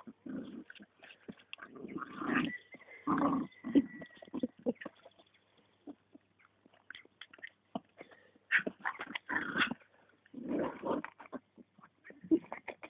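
Jack Russell terrier growling in short, irregular bursts while biting and tugging at a striped show-jumping pole. Small clicks and scuffs come between the growls.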